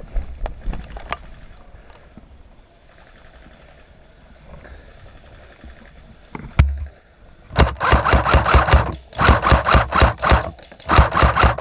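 Airsoft electric gun firing full-auto: three rapid bursts of about a second each in the second half, a fast even clatter of shots. A single low thump comes shortly before.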